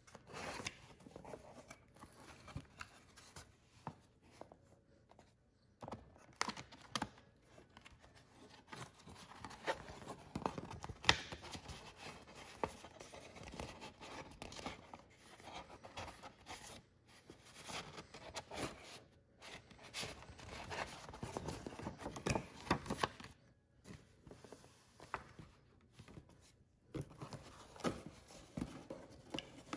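Hands handling cardboard packaging and paper: flaps of a corrugated shipping box and a stiff card envelope rustling, scraping and tapping in irregular bursts, with a few short pauses.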